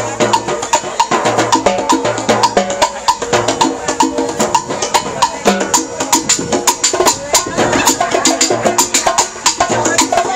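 Live Latin percussion band playing: congas and drums with a fast, steady run of sharp stick clicks over a repeating bass line.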